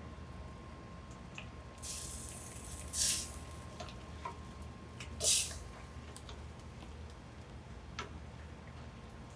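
Food being dished up in a kitchen: a few short wet swishes, the loudest about three and five seconds in, with light clicks of utensils between them.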